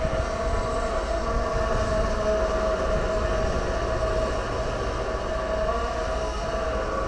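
Lifting crane running under load, its diesel engine rumbling low under a steady whine from the hoist winch as it holds the heavy excavator.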